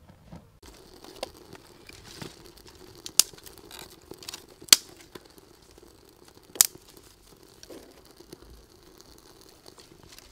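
Small wood fire being kindled in a stove: dry grass and twigs rustle and crackle as they are fed in, with three sharp loud cracks a second or two apart in the middle.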